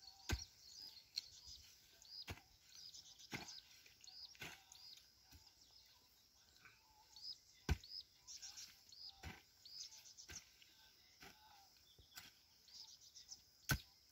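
A hoe blade striking into dry soil, about one dull knock a second, as a planting line is dug. Small birds chirp repeatedly in the background.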